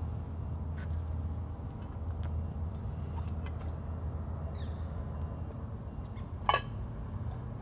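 Woodland morning ambience: a steady low rumble with a few short bird chirps, and a single sharp crack about six and a half seconds in.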